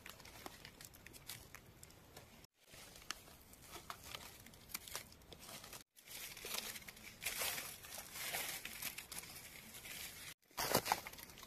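Faint rustling and crackling of dry leaf litter with scattered small snaps, as mushrooms are picked from the forest floor by hand. It stops dead three times for a moment.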